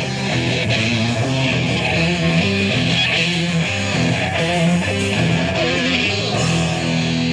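Punk band playing live: electric guitar and bass riffing over drums, loud and steady.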